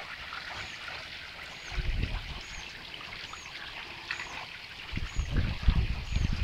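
Pond water trickling and lapping, with low rumbles about two seconds in and again from about five seconds on, and a faint high chirp repeating about once a second.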